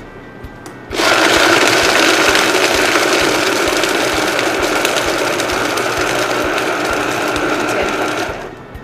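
Countertop blender motor running, blending a smoothie of ice, sweet potato, banana and milk. It starts abruptly about a second in, runs steadily with a constant high whine, and stops shortly before the end.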